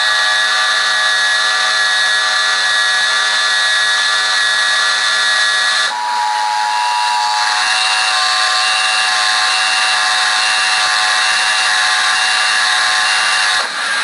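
Emergency Alert System test broadcast on WBNX-TV, heard through a TV speaker: a loud, harsh buzzing noise with several steady tones mixed in, changing character about six seconds in and dipping briefly near the end.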